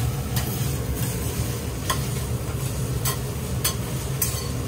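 Metal spatulas pressing and scraping a Hiroshima-style okonomiyaki on a steel teppan griddle, over a steady sizzle and low hum. About five sharp clinks of spatula on steel are spaced through it.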